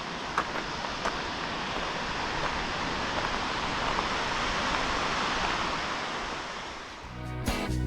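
Waterfall rushing, a steady hiss of falling water that grows louder through the middle and then fades. Two footsteps in the first second, and acoustic guitar music comes in during the last second.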